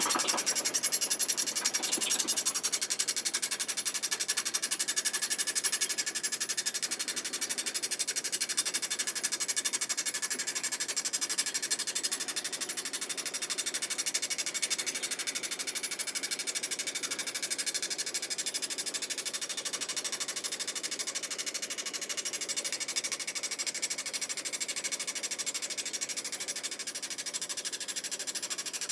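Direct-push soil drill rig's percussion hammer driving steel probe rods into the ground: a steady, rapid machine hammering of about 20 blows a second.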